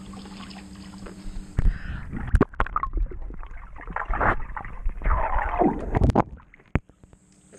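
Muffled underwater sound of a swimming pool picked up by a submerged camera: gurgling bubbles and sharp clicks and knocks of water against the housing. A steady hum in the first second and a half gives way to this as the camera goes under, and it fades out near the end.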